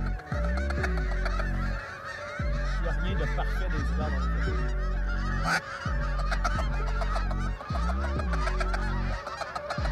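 A large flock of Canada geese honking in flight overhead, many calls overlapping into a continuous din.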